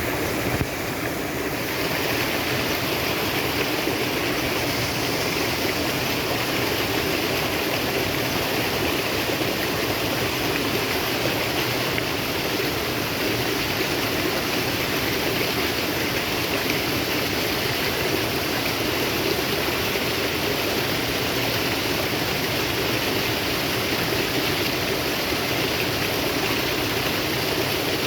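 Water flowing steadily in a natural stream, a constant rushing and splashing.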